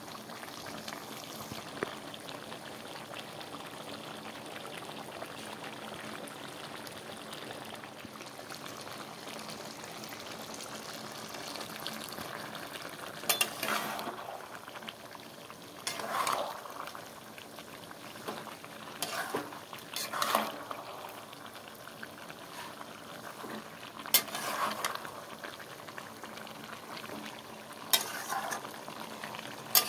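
Chicken and potato curry simmering and sizzling in a pan, a steady bubbling hiss. In the second half a metal spatula stirs and scrapes the pan in about five short bouts.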